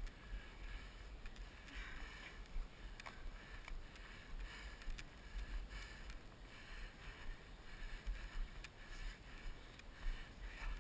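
Heavy, labored breathing close to the microphone, about one breath a second, over a steady low rumble of movement and wind.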